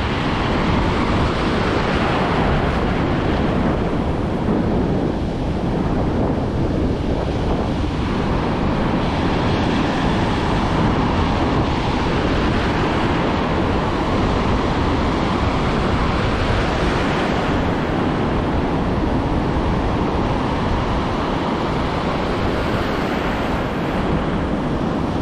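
Ocean surf breaking and washing up a beach, with wind buffeting the microphone. The noise swells and eases slowly over several seconds.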